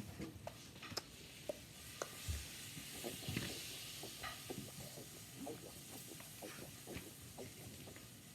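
Small plastic clicks and taps of LEGO pieces being handled and pressed together, scattered and irregular, with a soft rustle about three seconds in.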